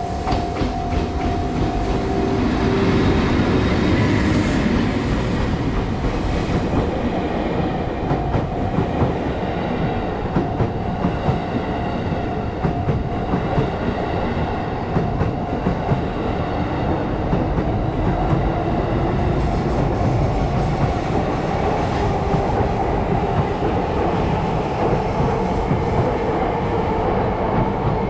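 A train passing close by: an EF81 electric locomotive towing a 215 series double-deck electric multiple unit set, its wheels clacking over the rail joints in a regular rhythm.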